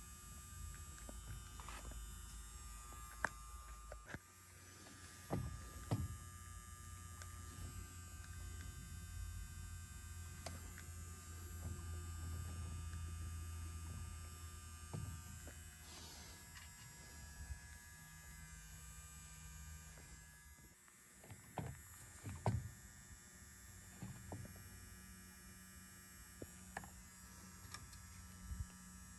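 Low hum of a small electric motor, changing in strength, with scattered sharp clicks and taps from handling small parts.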